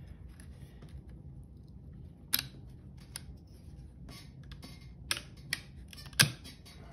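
Steel retaining ring being worked into its groove on a Massey Ferguson 50A clutch basket: about half a dozen sharp metallic clicks and clinks, the loudest near the end as the ring seats.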